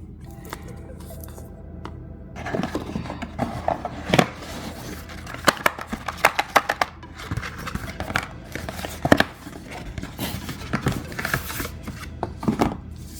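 Laptop box and its packaging being opened and handled: an irregular run of sharp taps, clicks and scrapes of cardboard and plastic.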